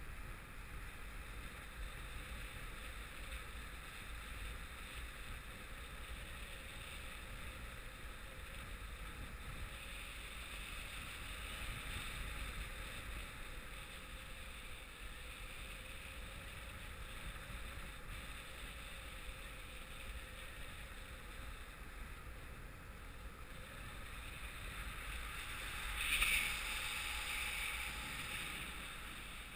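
Rushing airflow on the microphone of a camera carried on a paraglider in flight, a steady noise that swells briefly near the end.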